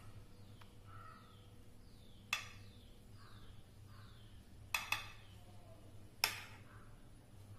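A metal spoon clinking sharply against the edge of a clear dish as cream is spread with it: once, then a quick double, then once more near the end, each with a short ring.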